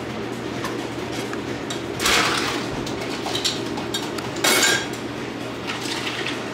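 Restaurant clatter: dishes and cutlery clinking over a steady background hum, with two louder bursts of noise, about two seconds in and again about four and a half seconds in.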